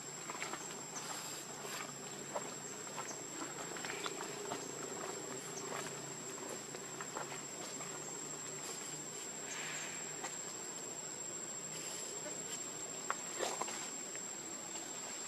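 A steady, high-pitched insect drone held unbroken throughout, with a few faint scattered clicks and rustles.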